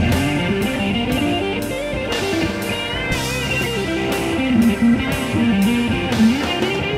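Telecaster-style electric guitar playing an improvised, bluesy lead melody with string bends and vibrato. It is played over a backing with a bass line and a steady beat.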